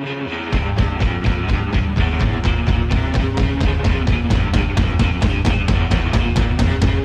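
Rock music with electric guitar; the full drum kit comes in about half a second in and keeps a steady, driving beat.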